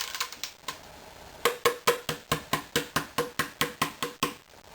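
Plastic dust bin of a Hoover Flair stick vacuum being knocked over and over, about five sharp hollow knocks a second for roughly three seconds, to shake out paper shreds jammed inside. The knocking begins about a second and a half in.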